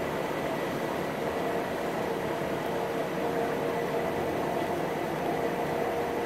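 Electric rack-railway train running steadily, an even rumble with a steady hum of tones over it.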